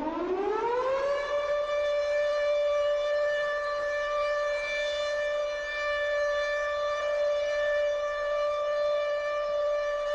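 Civil defense siren winding up, its pitch rising over about the first second, then holding one steady tone: an air-raid warning for a nuclear attack, part of a mock emergency alert.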